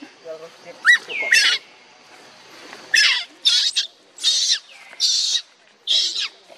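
Baby macaque crying in a series of short, high-pitched screams: a pair about a second in, then five more in quick succession from about three seconds on.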